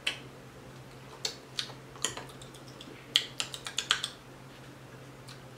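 Scattered short, sharp clicks and taps, with a quick run of about six of them between three and four seconds in.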